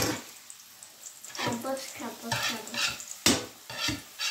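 Spatula scraping and knocking against a non-stick frying pan as scrambled egg and garlic are stirred and broken up, the food sizzling. The sharpest knocks come at the very start and about three seconds in.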